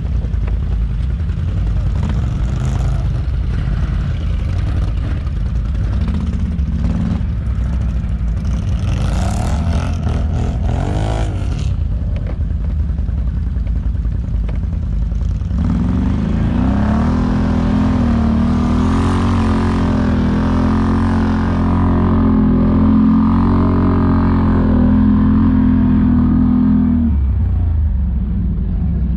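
ATV engine running with a steady low rumble. It revs briefly about a third of the way in, then just past the middle climbs to higher revs and holds them steady for about ten seconds before dropping back near the end.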